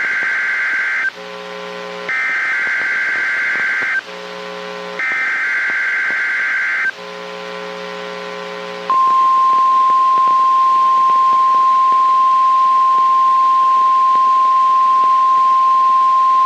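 NOAA Weather Radio Emergency Alert System signal. First come three bursts of SAME digital header tones, a harsh warbling data screech, with a low hum in the short gaps between them. Then, about nine seconds in, a steady 1050 Hz warning alert tone sounds: the signal that precedes a warning message, here a winter storm warning.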